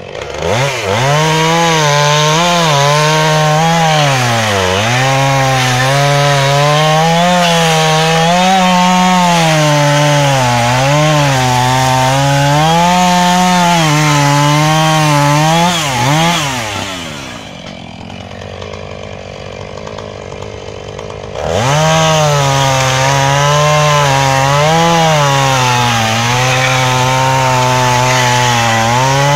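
Husqvarna 445 two-stroke chainsaw cutting through a bundle of firewood branches: the engine revs to full throttle, its pitch dipping and recovering as the chain loads up in the wood. A little past the middle it drops to idle for a few seconds, then revs up and cuts again.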